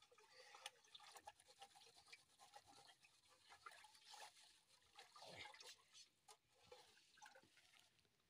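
Faint soft splashing and dribbling of liquid in a metal pot, with scattered small clicks and rustles, as dry noodle strands are crumbled by hand into it.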